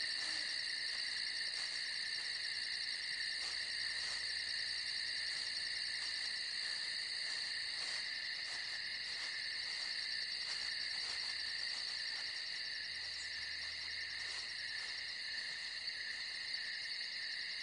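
Night chorus of crickets and other insects: several high, shrill tones held steady without a break.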